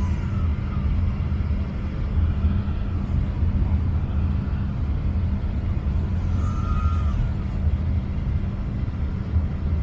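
Steady low drone of jet engines and rushing air heard inside an airliner cabin during the descent to land.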